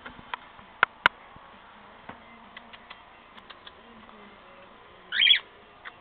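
A few sharp clicks and taps in the first second or so, then a short, loud, warbling chirp from a cockatiel about five seconds in.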